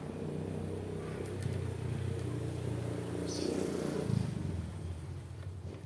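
A small engine running steadily at low speed, a little louder for a moment about four seconds in.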